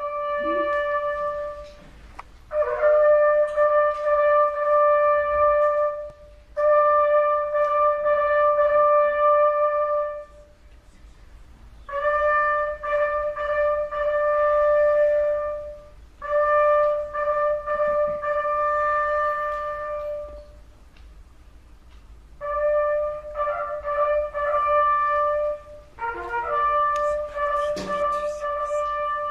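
A brass instrument playing slow, long held notes, most on the same pitch, each lasting three to four seconds with short breaths between, and a few shorter notes on other pitches near the end.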